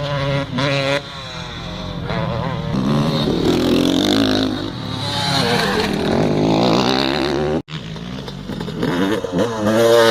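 KTM 250SX single-cylinder two-stroke motocross engine being ridden, its pitch rising and falling as the throttle opens and closes. The sound cuts out for an instant about seven and a half seconds in.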